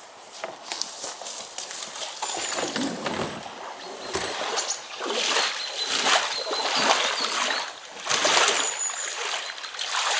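Shallow lake water splashing and sloshing in irregular surges as a person wades in, pushing an inflatable boat off the bank and afloat.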